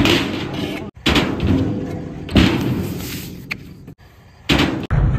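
Scooter slamming onto a steel quarter-pipe ramp and concrete: four sharp bangs, each followed by wheel rolling noise that fades, some cut off abruptly.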